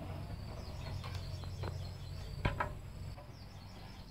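A few sharp metal clinks of a hand tool working bolts on a small diesel engine, the loudest about two and a half seconds in, over a steady low hum and insects chirping.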